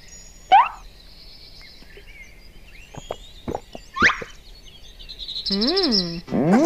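Cartoon sound effects: a quick swoosh, a few sharp clicks and plops, another sweep, then a wavering tone that bends up and down and a rising slide that leads into bouncy music.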